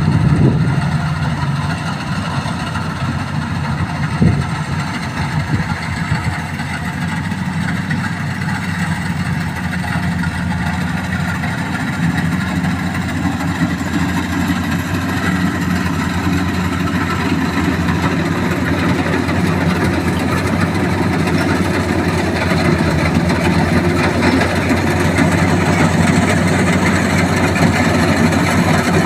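Engine of a rice harvesting machine running steadily, with one sharp knock about four seconds in.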